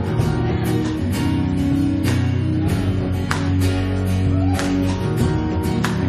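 Live worship band playing an instrumental passage: strummed guitar over bass and steady drums with cymbal hits.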